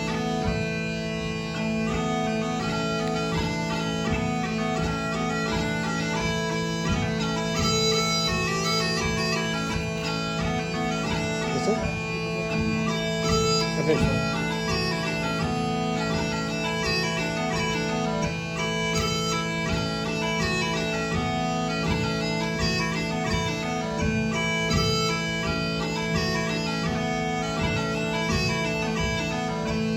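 Scottish smallpipes played solo: a quick, busy melody on the chanter over steady, unbroken drones.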